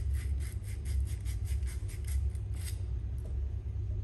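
Wire pipe-cleaning brush scrubbing the end of a copper pipe, rubbed back and forth at about five strokes a second, cleaning the copper bright before it is fluxed and soldered; the scrubbing stops about three quarters of the way through. A steady low hum runs underneath.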